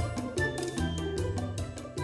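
Upbeat background music with a Latin-style beat, bass notes and percussion.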